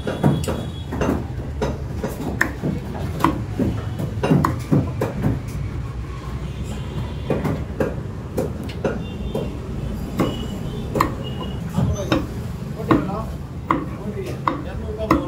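Cleaver chopping raw chicken into pieces on a wooden log chopping block, with sharp irregular knocks about once or twice a second.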